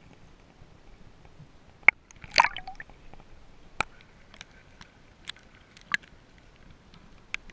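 A camera breaking up through the water surface with a sharp tick and a short splash about two seconds in, then scattered sharp drips and small splashes as it bobs at the surface.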